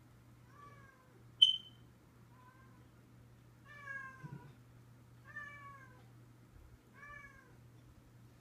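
A cat meowing repeatedly: five short calls, each falling in pitch. A single sharp click about a second and a half in is the loudest sound, over a low steady hum.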